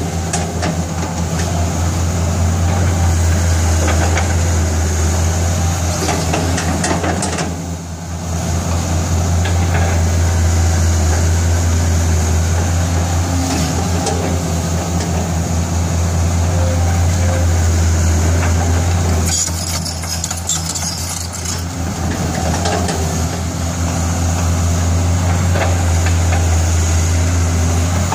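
Caterpillar 320C long-reach excavator's diesel engine running steadily with a deep hum as the machine works its bucket to level soil. The sound dips briefly about 8 seconds in and again around 20 seconds.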